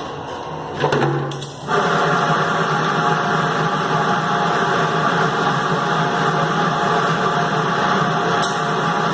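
Automatic 20-litre jug washing and filling machine in operation: a few clicks and knocks, then just under two seconds in a loud steady mechanical noise with a hum starts up and keeps going.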